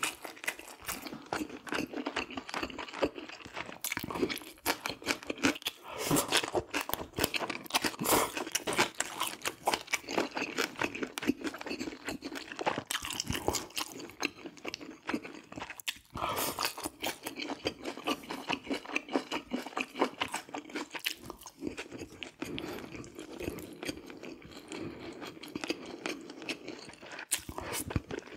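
Close-miked chewing and mouth sounds of someone eating braised sea bream: a dense, uneven run of short wet clicks and smacks.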